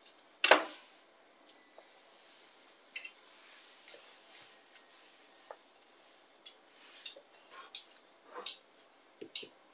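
Light clinks and taps of kitchenware being handled, about a dozen short separate knocks. The loudest comes about half a second in, then the rest come sparser and quieter.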